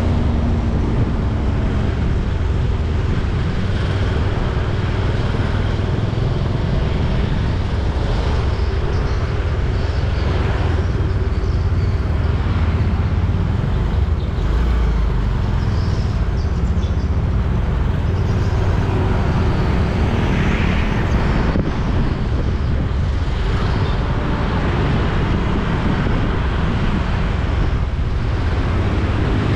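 Road traffic noise: a steady low rumble of vehicles and tyres on a busy road.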